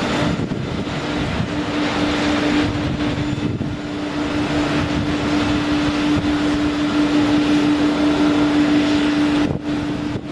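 Boeing 747-8 freighter's four GEnx-2B turbofan engines on landing approach: a steady jet roar with a held humming tone, briefly dipping near the end.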